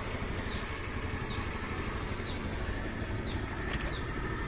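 Motorstar Easyride 150 CL motorcycle's 150 cc engine idling steadily after a hard-starting fault was cured by bypassing its faulty kill switch. A faint short high chirp repeats about every two-thirds of a second.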